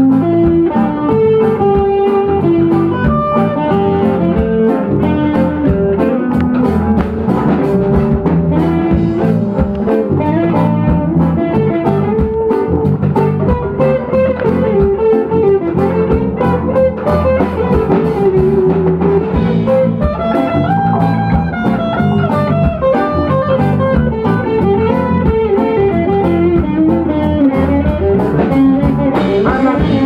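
Live band music: a Stratocaster-style electric guitar plays a moving single-note lead line over a drum kit keeping a steady beat.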